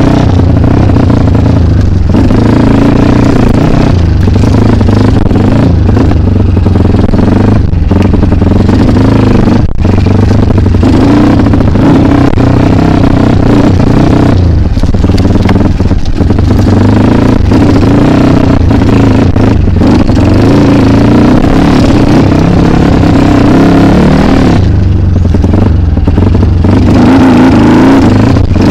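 Kawasaki KLX dirt bike engine running loud and close as the bike is ridden over an enduro trail, its revs rising and falling with the throttle and easing off briefly several times.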